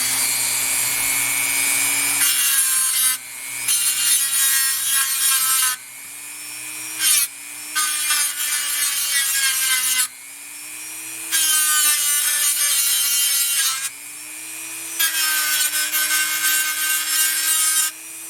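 Dremel rotary tool running steadily while its grinding bit is pressed against a brass pivot pin base in repeated passes of one to three seconds, grinding away the swaged brass that holds the pin to the sheet-metal turnout housing. Between passes only the motor's whine is heard.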